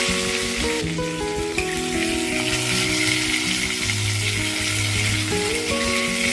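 Chopped onion, garlic, ginger, green chillies, coconut and tomato frying in hot ghee in a kadai: a steady sizzling hiss.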